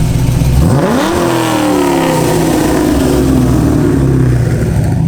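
Car engine revving up sharply about a second in, then its pitch falling slowly over the next few seconds, over a steady heavy low rumble.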